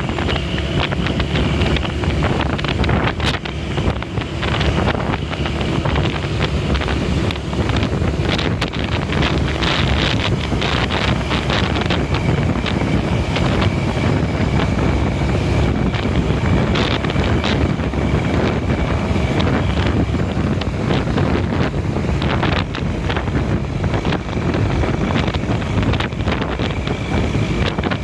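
Bus on the move: steady engine and road noise with wind buffeting the microphone.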